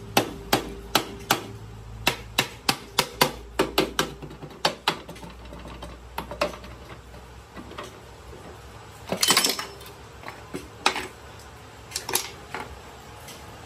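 A soft-faced mallet knocking on the metal casing of a vintage engine to loosen the timing gear cover: sharp knocks about three a second for the first five seconds. Later come a short burst of metal clatter and a few scattered knocks as the cover comes free.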